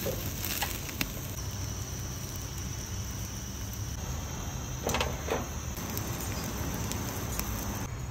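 Steady low background rumble, like outdoor ambience with distant traffic, with a few light clicks and a short scrape about five seconds in.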